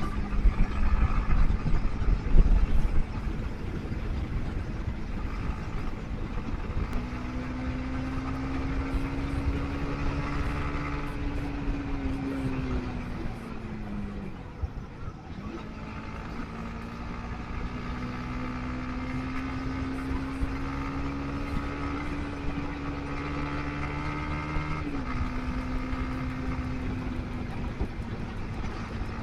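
Motorcycle engine running on the move, with low wind rumble loudest in the first few seconds. The engine note holds, then drops away about 12 to 15 seconds in as the throttle eases off. It then climbs slowly and steps down at a gear change about 25 seconds in.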